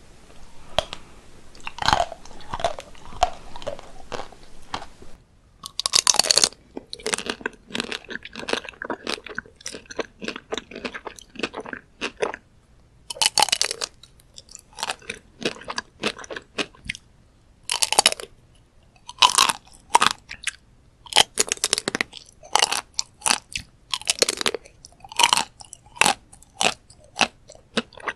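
Close-miked biting and chewing of chocolate-coated ice cream bars, the hard chocolate shell cracking and crunching in quick clusters of sharp crackles. A faint background hiss drops out about five seconds in.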